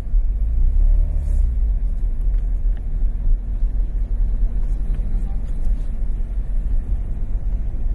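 Citroën BX 14 RE's Douvrin 'suitcase' four-cylinder engine and road noise heard from inside the cabin while driving, a steady low rumble. The engine note swells and dips about a second in.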